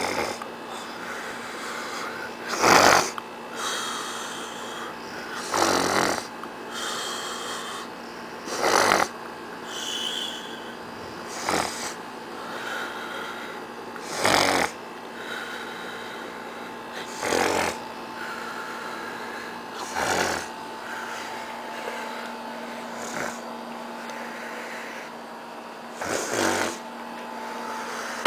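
A man snoring in his sleep, a loud snore about every three seconds, with quieter breathing between.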